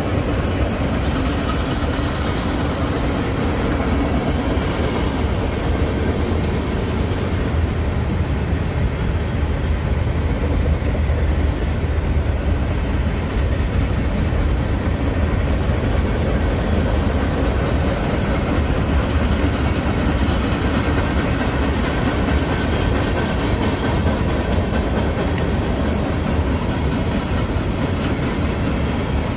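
Freight cars of a Union Pacific manifest train rolling past: a steady, unbroken noise of steel wheels running on the rails, heaviest in the low end.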